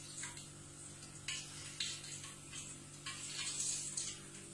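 Hot oil sizzling and crackling in a frying pan in uneven spurts as fried sardines are lifted out with metal tongs, with a steady low hum underneath.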